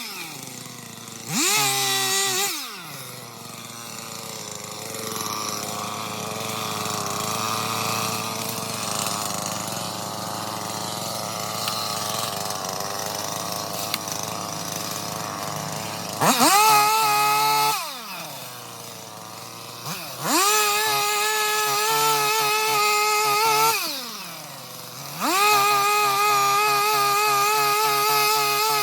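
Stihl two-stroke chainsaw idling and revving up to high speed four times: a short burst near the start, then three longer runs later on, the last held to the end, dropping back to idle between them.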